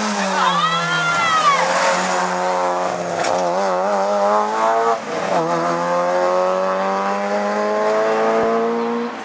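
Rally car engine at high revs, with a brief tyre squeal in the first two seconds and a sharp pop about three seconds in. The revs drop sharply about five seconds in, then climb steadily as the car accelerates, and cut off near the end.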